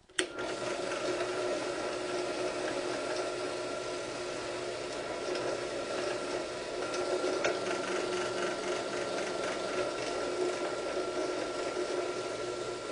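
Benchtop drill press running steadily, its small twist bit drilling screw pilot holes into a wooden rail.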